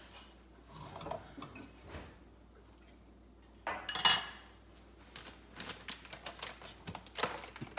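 Kitchen clatter of a spatula against dishes: light knocks and scrapes, one loud clatter about four seconds in as the spatula is put down at a bowl, then a run of small clicks.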